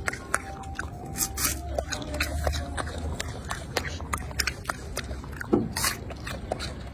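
Golden snub-nosed monkey biting and chewing a crisp pear: an uneven run of sharp crunching clicks.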